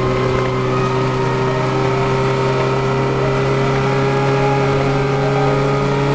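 Honda CB550F's air-cooled inline-four engine running at a steady cruising speed, holding an even pitch.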